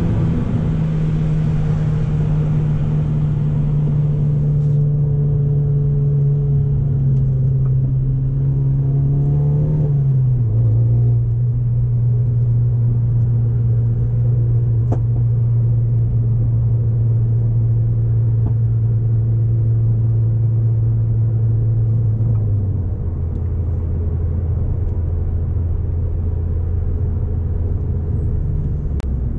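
Renault Megane RS with an Akrapovic exhaust being driven, its engine holding a steady low drone. About a third of the way in the pitch rises briefly, then drops to a lower note, and it steps down again about two-thirds of the way through, as with upshifts or easing off.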